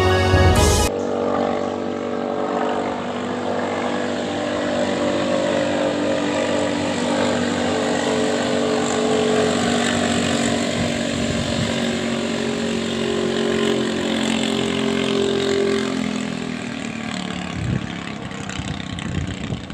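Engine of a ketinting racing longtail boat running flat out, a steady drone whose pitch wavers slightly and thins out near the end. A music track cuts off about a second in.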